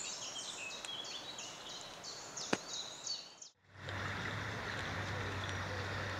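A bird sings a rapid, high, repeated song over a faint outdoor hiss, with a couple of sharp clicks. About three and a half seconds in, the sound cuts out abruptly and is replaced by the steady rushing of flowing river water, with a low hum.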